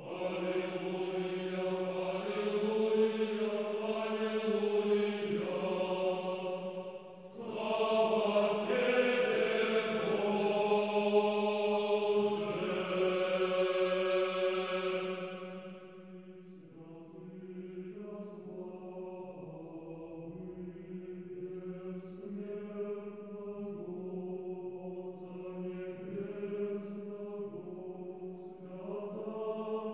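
A choir singing slow chant in long held notes, loud for the first half and dropping to a softer passage about halfway through.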